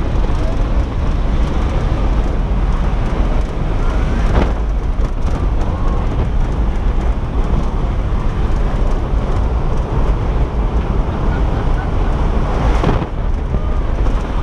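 Loud, steady rush of wind and aircraft engine noise inside a jump plane's cabin with the door open, buffeting the microphone. Two brief knocks come about four seconds in and near the end.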